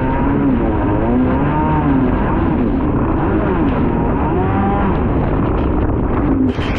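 Kawasaki 650SX stand-up jet ski's two-stroke engine running hard, its pitch rising and falling over and over as the craft rides choppy waves. Near the end the engine note gives way to a rush of noise.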